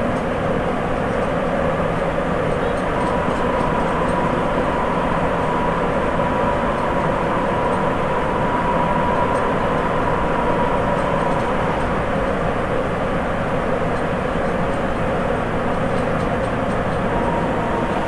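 Sapporo Municipal Subway 8000 series train (Toshiba IGBT-VVVF) running between stations, heard from inside the car: a steady rumble. A faint high whine comes in a few seconds in, fades about two-thirds of the way through, and returns near the end.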